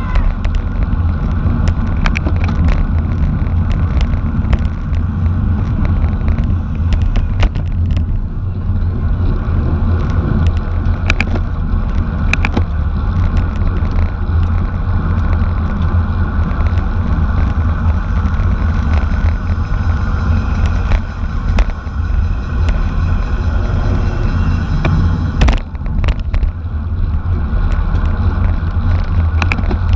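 Heavy wind buffeting and road rumble from a bicycle moving at racing speed, with scattered sharp clicks and a few stronger ones near the end.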